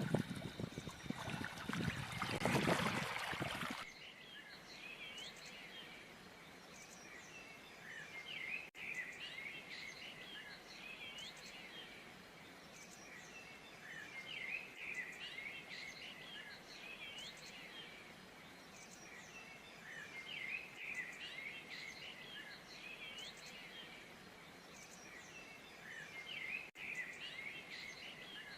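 A loud rushing noise for the first four seconds that cuts off abruptly. It is followed by many small birds chirping and twittering in repeated clusters every few seconds over a faint steady hiss.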